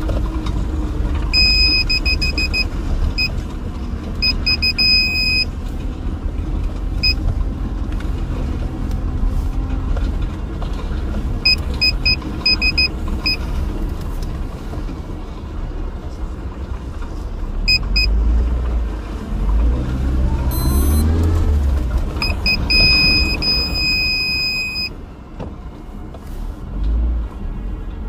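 A car moving slowly on a narrow, slippery dirt track, its engine and tyres giving a steady low rumble that swells with the engine revving about two-thirds of the way through. Bursts of rapid high electronic beeping come and go three times, from the car's parking sensors as it backs up.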